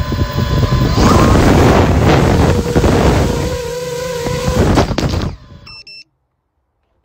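Motors of a 7-inch FPV drone spinning up with the phone mounted on it, propeller wash buffeting the phone's microphone: a loud rushing noise with a steady tone through the middle. A few short electronic beeps come about five and a half seconds in, then the sound cuts off abruptly.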